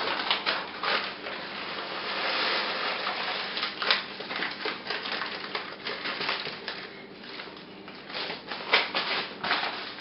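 Coffee beans poured into a Mr. Coffee IDS 77 electric coffee grinder: a dense rattle of beans on plastic that is thickest a couple of seconds in, then scattered clicks and knocks as the grinder is handled. The motor is not running.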